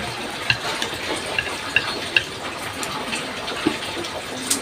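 Eating at the table: a handful of short, light clicks of utensils against a plate over a steady background hiss.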